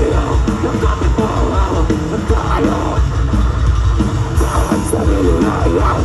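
Live rock band playing loud through a stage sound system: a singer's voice over guitar and a drum kit.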